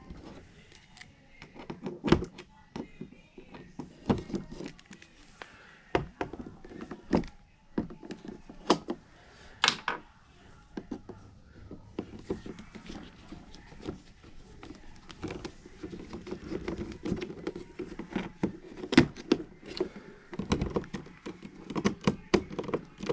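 Irregular clicks, taps and knocks of hand work with tools and small parts, busier and more continuous in the last third.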